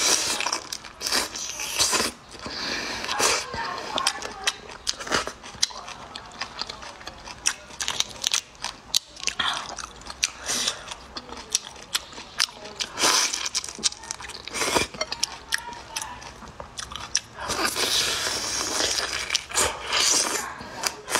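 Close-up eating sounds of whole shell-on shrimp being bitten and chewed, with many sharp crackling crunches as the shells break.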